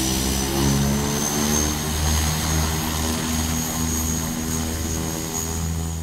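Turboprop airliner's engines and propellers running: a steady deep drone with a thin high whine and a broad rushing hiss.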